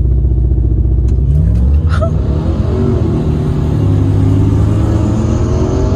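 Vehicle engine revving hard at full throttle during a sand drag run. Its pitch climbs about a second and a half in, then holds high.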